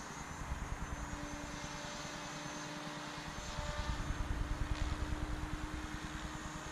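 Diabolo 550 electric RC helicopter flying at a distance: a steady hum from its rotor and brushless motor, under a low gusty rumble that swells about four seconds in.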